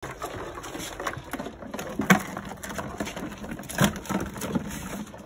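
Live crabs clattering and scrabbling, shells and legs knocking on a hard plastic tote as they are dropped in by hand, with louder knocks about two seconds in and again near four seconds.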